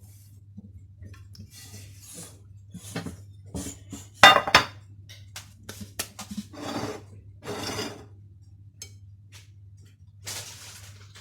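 Kitchen bowls and utensils knocking, clinking and scraping. One sharp knock about four seconds in is louder than the rest, and a faint low hum runs underneath.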